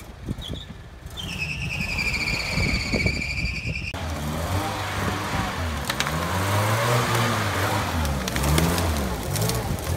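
UAZ-469 off-roader engine revving up and down unevenly as it drives through mud, with a wash of noise from the churning wheels. A high, steady whine sounds for the first few seconds before the engine gets loud.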